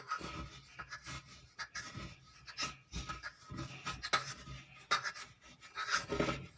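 Puffed borax (phool suhaga) being crushed and ground on a marble slab: irregular scraping strokes with small knocks.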